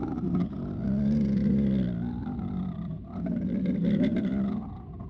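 A low-pitched, heavily processed voice making drawn-out garbled sounds with no clear words, wavering in pitch and dipping briefly about three seconds in.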